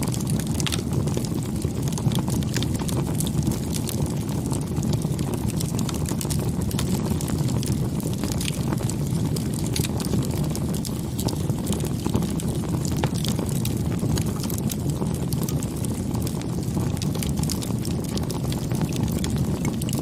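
Campfire burning, with frequent small crackles and pops of wood over a steady low rushing noise.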